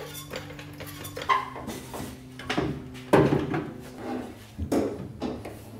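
Handling clatter: a floor jack rolled across a concrete floor and an aluminium radiator knocked against the car's front during a test fit, several separate clunks and rattles, the loudest about three seconds in.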